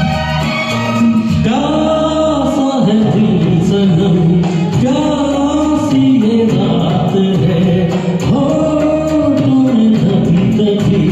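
A male voice singing a Hindi film song, held and gliding phrases, over a karaoke backing track of recorded instruments; the singing comes in about one and a half seconds in after a short instrumental stretch.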